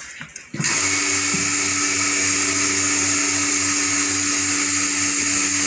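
Electric pressure washer kicking in about half a second in and then running steadily: a constant motor-and-pump hum under the hiss of the water spray.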